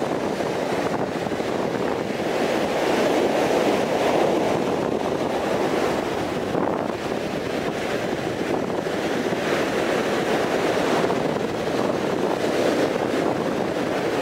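Ocean surf breaking on the shore, a steady rush that swells and eases, with wind buffeting the microphone.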